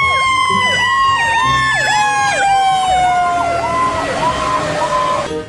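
Fire truck sirens: one siren holds a long tone that falls slowly in pitch, while a second yelps up and down about twice a second. Both cut off suddenly near the end.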